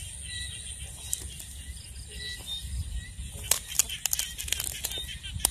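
Footsteps brushing and crackling through dry grass and weeds, with several sharp crackles from about three and a half seconds in, over a steady high chirring of night insects.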